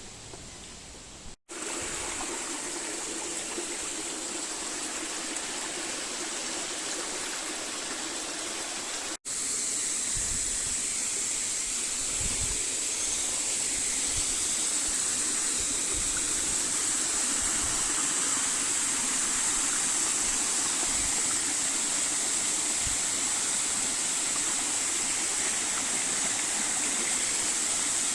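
Stream running, a steady even rush of flowing water. It cuts out briefly twice, about a second and a half in and about nine seconds in, and comes back a little louder after the second break.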